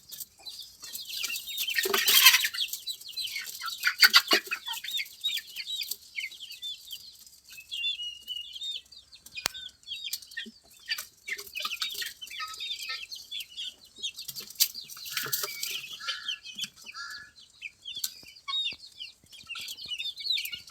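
A poultry flock calling: many short, high-pitched peeps and clucks throughout, with louder squawks about two and four seconds in and again around fifteen seconds.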